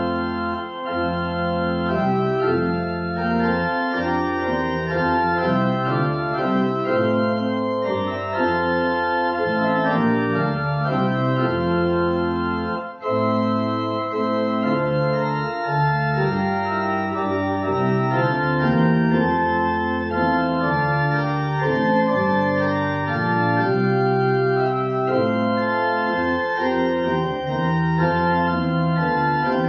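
Organ music: slow, held chords that change every second or two, with a steady low bass line.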